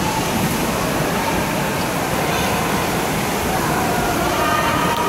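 Indoor water park hall ambience: a steady rush of water with distant, echoing voices.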